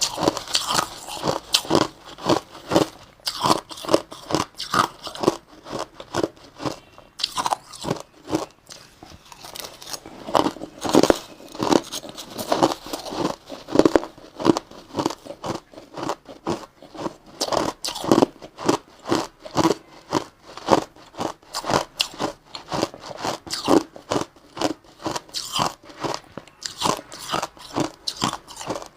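Crushed or shaved ice being bitten and chewed, a quick run of loud, irregular crunches with crackling between bites.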